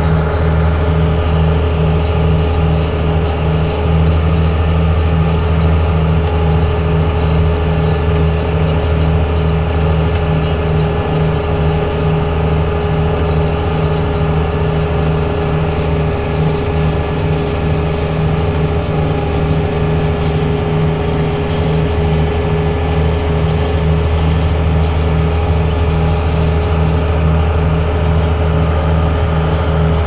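Grimme GZ potato harvester at work behind a Case 5150 Pro tractor: a loud, steady drone of the tractor engine and the harvester's driven webs and elevator, with a fast, even pulsing.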